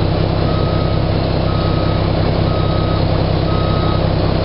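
Mack truck's diesel engine running steadily through newly fitted 7-inch straight stacks, with a reversing alarm beeping about once a second over it.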